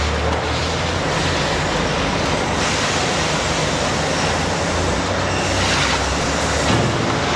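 Loud, steady mechanical noise with a low hum underneath, typical of factory machinery running.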